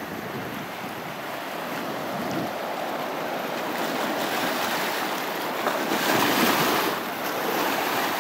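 Pacific Ocean surf washing in, a steady rushing noise that swells to its loudest about six seconds in.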